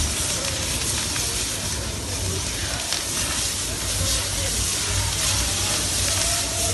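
A house fire burning in an upstairs room: a steady hissing crackle of flames, with a low rumble underneath.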